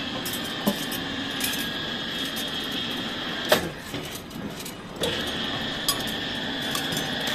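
Electric rebar bending machine bending a steel bar into a triangular stirrup: the motor and gearbox run with a steady whine, stop with a loud metal clank about three and a half seconds in, and start again about a second and a half later. A few lighter metal knocks as the bar shifts against the pins and turntable.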